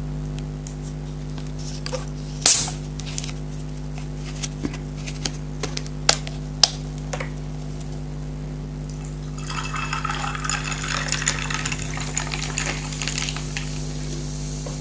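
A sharp click, then a few knocks, and about nine seconds in Coke poured into a glass, fizzing for about four seconds, over a steady low hum.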